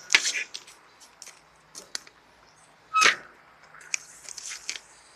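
Footsteps through grass and weeds with scattered rustles and handling knocks on the phone, a louder rustle about three seconds in.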